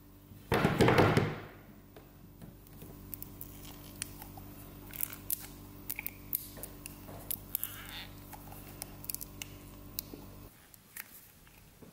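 A brief loud rustle about half a second in, then small clicks and squelches of a plastic squeeze bottle squirting clear PVA glue into a glass bowl. Under it runs a steady low hum that stops shortly before the end.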